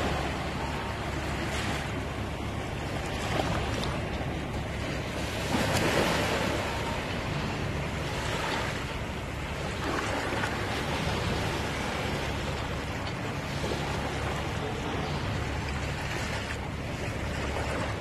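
Small sea waves lapping and washing up onto a sandy beach at the shoreline, in a steady wash with a louder surge about six seconds in.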